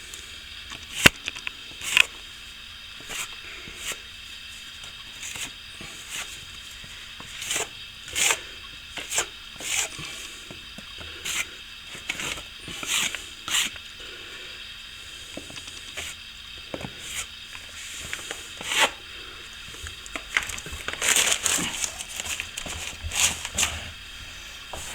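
A hand plastering tool scraping and smoothing fresh plaster over a wall patch in short, irregular strokes, one or two a second, with a busier run of strokes near the end.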